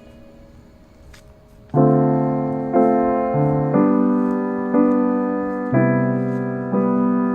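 Background music: a quiet first couple of seconds, then a piano starts a slow intro of sustained chords, struck about once a second.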